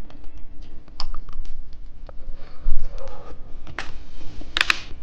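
Small clicks and taps of candy and its plastic packaging being handled, with a rustle about three seconds in and a short sharp plastic crinkle near the end.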